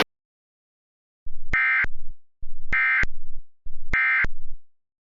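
Emergency Alert System end-of-message data bursts: three buzzy, warbling digital squeals of about a second each, with short gaps between them, marking the end of the alert.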